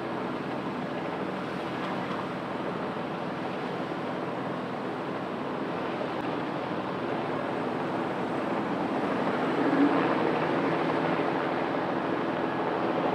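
Light single-turbine helicopter running, a steady wash of rotor and engine noise over a low hum, growing a little louder about two-thirds of the way through.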